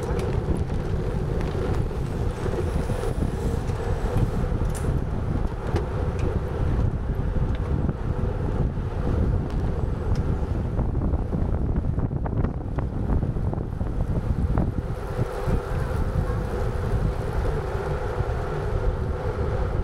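Wind buffeting the microphone: a steady low rumble with a constant hum underneath, as when recording on the move.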